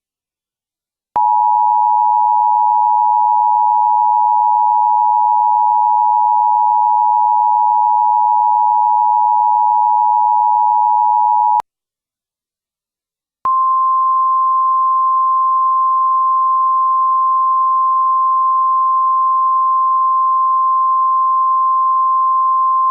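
Emergency Alert System attention signal: a steady two-note tone for about ten seconds that cuts off. After a two-second gap comes a single, slightly higher steady tone, the NOAA Weather Radio 1050 Hz warning tone, lasting about ten seconds. Together they signal that an emergency alert message is about to be read.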